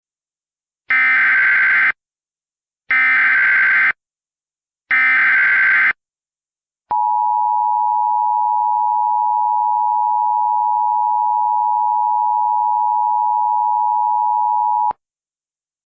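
Emergency Alert System tones: three one-second bursts of the SAME digital header's warbling data tone, a second apart, then the steady EAS attention signal held for about eight seconds before cutting off sharply. Together they mark the start of an emergency alert broadcast.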